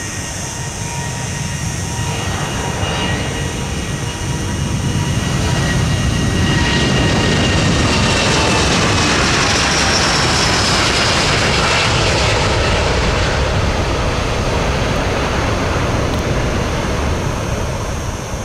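Airbus A330-900neo's Rolls-Royce Trent 7000 turbofans at takeoff power as the airliner rolls down the runway and lifts off. The jet noise builds over the first few seconds and is loudest about halfway through as the aircraft passes, with high whining tones falling in pitch. It then eases off a little as the aircraft climbs away.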